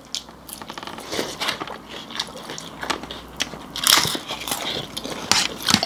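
Someone eating close to the microphone: irregular crunching and chewing of food, with louder crunches about four seconds in and again near the end.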